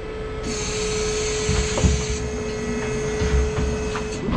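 Hoof-trimming crush being moved off its trailer: a steady mechanical whine over low thumps and rattles of the steel frame. The whine cuts off just before the end, as the crush comes free.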